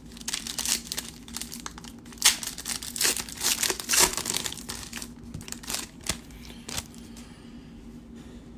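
Foil trading-card pack being torn open and its wrapper crinkled by hand, a run of sharp crackles that is loudest in the middle and thins out near the end.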